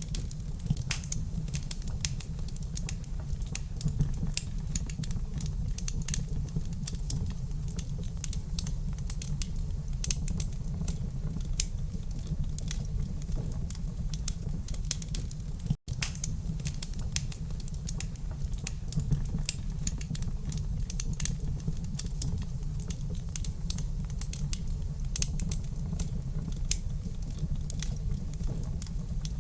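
Wood fire crackling in a fireplace: a dense, irregular run of small pops and snaps over a steady low rumble, broken by a split-second dropout to silence about halfway through.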